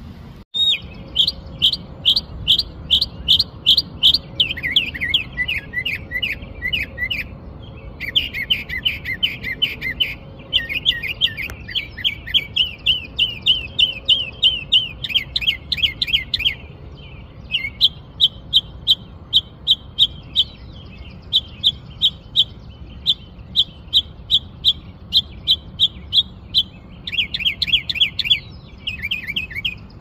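Northern mockingbird singing a long, varied song: each note is repeated rapidly several times in a series, then the bird switches to a different note and repeats that, with brief pauses between series.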